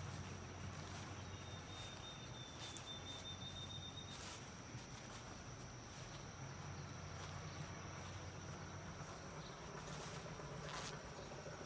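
Faint steady drone of insects, a continuous high thin tone, with a few sharp clicks scattered through it and a low hum in the first few seconds.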